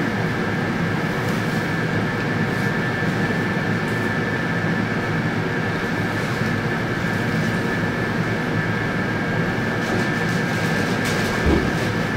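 Interior of an ET2M electric multiple-unit carriage standing at a platform: a steady hum of the train's running equipment with a constant high whine over it, and a soft knock near the end.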